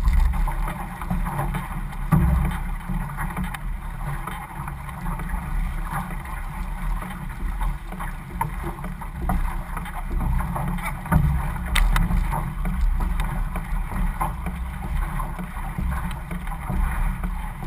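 Water rushing and splashing along the hull of an outrigger canoe under paddle, with paddle blades dipping in, and wind buffeting the microphone as a low rumble.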